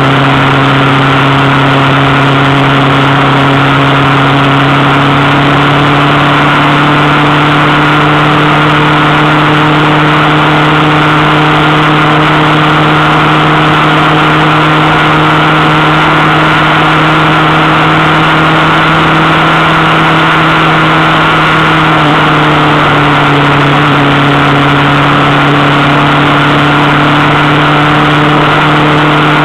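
Vehicle engine cruising at steady revs, heard from on board as a constant drone with wind and road noise. About three-quarters of the way through, the engine note drops slightly and holds at the lower pitch.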